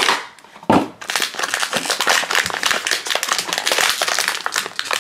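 Foil blind-bag wrapper crinkling and crackling as it is pulled from its cardboard box and worked open by hand, with one loud sudden crinkle just under a second in.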